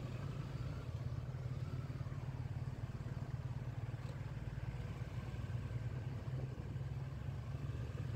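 Steady drone of a moving vehicle's engine and road noise while driving, even throughout.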